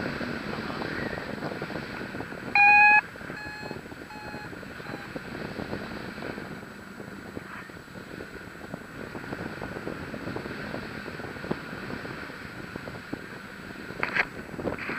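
Steady wind noise on the microphone of a paraglider in flight. About two and a half seconds in comes one loud electronic beep, followed by four shorter, fainter beeps at the same pitch. Brief bumps near the end.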